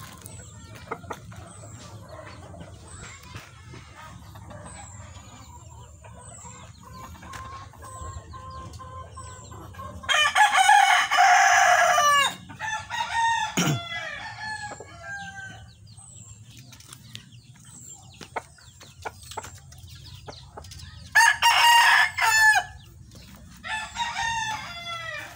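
Gamecock roosters crowing: a loud crow about ten seconds in that trails into a falling run of shorter calls, then two more crows near the end.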